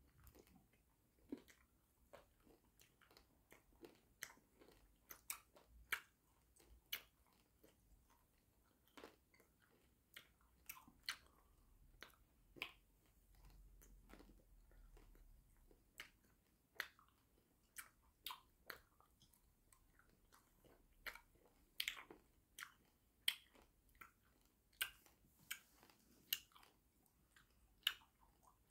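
Close-up mouth sounds of eating hard watermelon jawbreaker candy: irregular sharp clicks and smacks, about one or two a second, over near silence.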